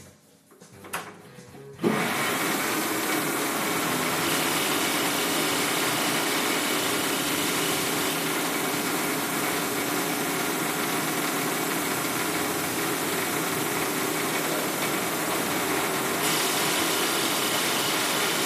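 Benchtop metal lathe, stopped at first with a few clicks, starts up sharply about two seconds in and then runs steadily, its three-jaw chuck spinning a pen blank while the cutting tool works it. The sound gets a little brighter near the end.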